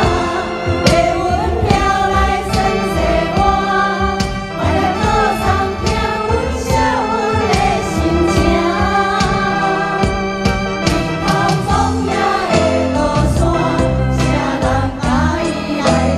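Singing over instrumental accompaniment with a steady beat.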